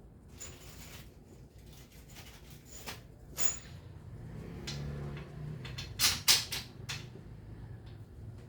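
A series of knocks, clacks and scrapes from objects being handled, with two loud knocks close together about six seconds in, over a low steady hum.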